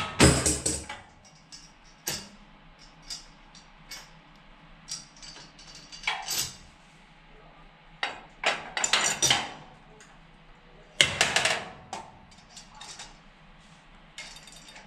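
Metal clicks and clanks from handling a flat earthing strip and fitting its bolt, self-locking washer and nut by hand. They come in short irregular clusters every second or two, the loudest right at the start, around nine seconds in and at about eleven seconds.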